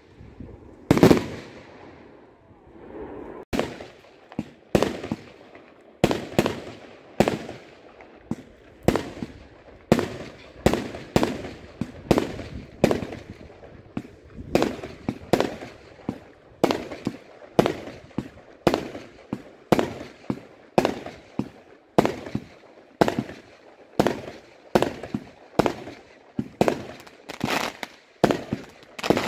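Aerial fireworks bursting overhead: a long run of sharp bangs, most of them under a second apart, each fading away, after a short pause near the start.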